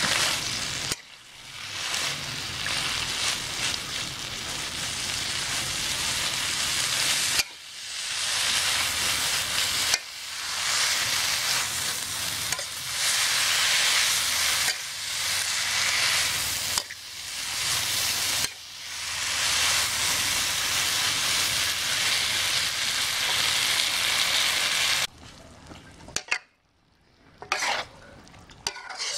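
Greens and canned fish stir-frying in a hot wok, a loud steady sizzle as a metal spatula turns the food. The sizzle cuts out briefly several times and falls much quieter near the end, leaving a few taps of the spatula.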